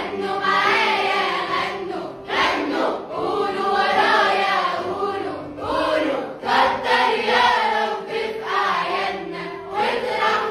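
Arabic Ramadan farewell song: a choir singing over instrumental backing music.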